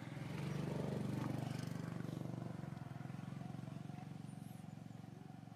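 Engine of a passing motor vehicle: a low drone that swells about a second in, then slowly fades.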